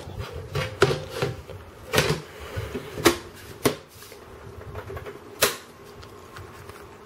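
Aluminium side panel of a Power Mac G5 being fitted back onto the case: irregular sharp clicks and knocks of metal on metal.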